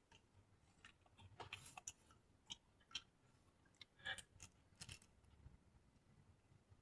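Faint eating sounds: soft chewing and crunching of raw vegetables, as a few scattered short clicks and crackles with quiet gaps between them.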